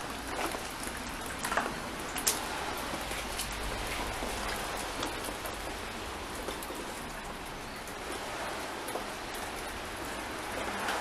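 Steady hiss like light rain, with a few sharp crunches of debris underfoot in the first couple of seconds.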